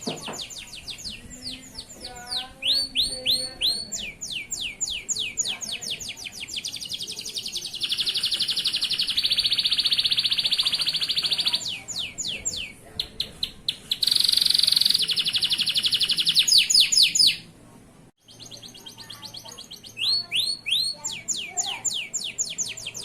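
Male canary singing: fast runs of repeated rising chirps alternating with two long buzzy trills, with a brief break about three quarters of the way through before the rapid chirping picks up again.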